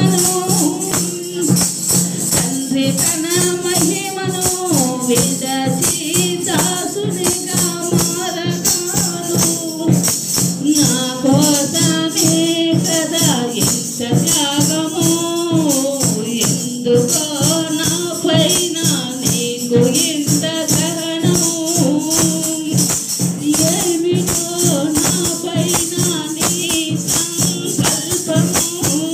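A woman singing a devotional song into a microphone, one melodic voice line throughout, over steady rhythmic hand clapping that keeps the beat.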